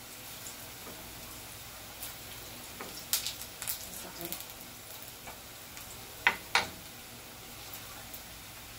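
Smashed plantains (tostones) frying in a pan of hot oil, a faint steady sizzle. A few sharp clicks of kitchen utensils come through it, the loudest two in quick succession about six seconds in.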